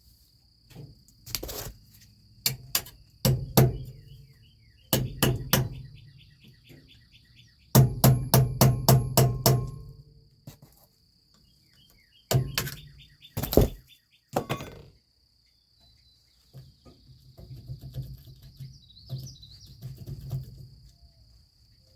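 Sharp metal knocks and taps in short runs, the longest a quick string of about six blows, as hand tools work on the trailer's S-cam brake parts while the snap ring and washers are fitted. Crickets chirp steadily underneath.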